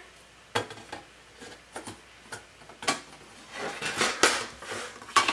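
A thin glass pane and the wooden floating frame being handled on a cutting mat: a few scattered light clinks and taps, the sharpest about three seconds in, with a short stretch of handling noise around four seconds in.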